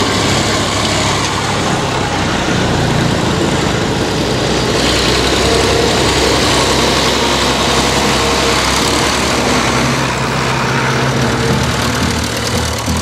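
Farm tractor engines running steadily: one tractor passing close by, then a second tractor drawing near along a lane.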